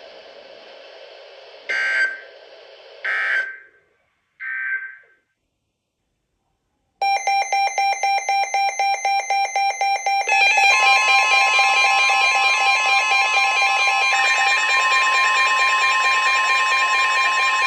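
Weather radio emergency alert sounds. Faint receiver hiss, then three short screeching data bursts of the EAS/SAME end-of-message code. After a brief silence, a weather radio's electronic alarm starts pulsing about four times a second; a steady NOAA warning alert tone joins it about three seconds later, announcing a new warning.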